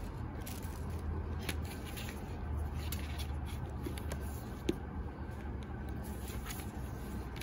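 Hands handling a sling bag's strap: faint light clicks and taps over a low steady hum, with one sharper click a little past halfway.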